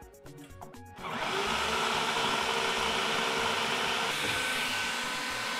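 Electric food processor switched on about a second in, its motor running steadily as it chops a coarse mix of yam and plantain.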